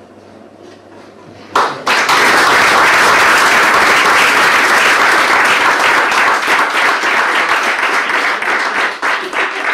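Audience applauding, breaking out suddenly about two seconds in and going on steadily, easing a little near the end.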